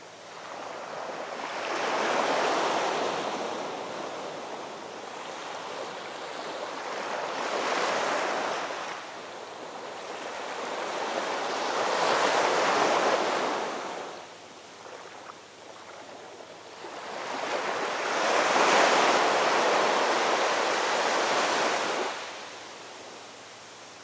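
Rough sea surf breaking against rocks and concrete tetrapods. It comes in four surges of crashing water with quieter lulls between, the last surge the longest and loudest.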